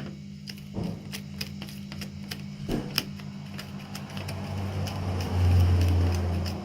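A fork clicking and scraping irregularly against a bowl while stirring slime mixture. A low rumble swells in about four seconds in and is loudest near the end.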